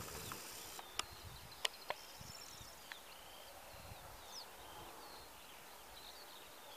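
Faint outdoor ambience with small birds calling: short high chirps scattered throughout and a brief trill near the end. Three sharp clicks come about one to two seconds in.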